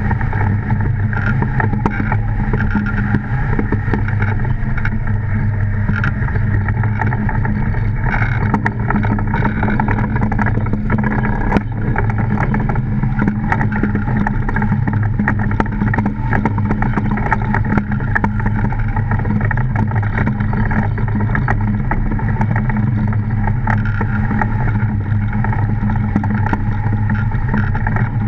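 DN iceboat sailing: its runners running over the ice, giving a steady low drone carried through the wooden hull, with a constant fine crackle.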